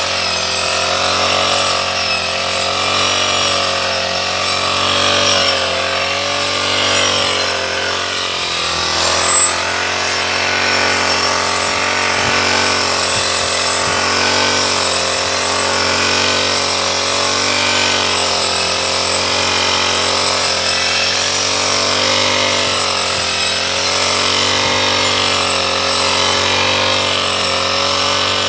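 Brush cutter's small engine running steadily while mowing tall para grass, its pitch wavering slightly, with a few brief louder moments in the first ten seconds.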